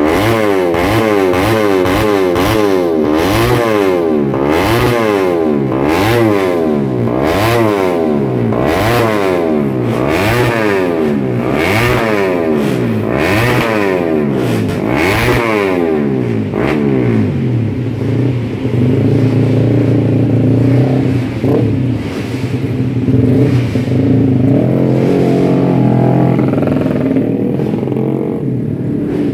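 Race-tuned motorcycle engine revved by hand on the stand, with the throttle blipped again and again so the revs rise and fall in quick succession. About halfway through it settles to a steady idle.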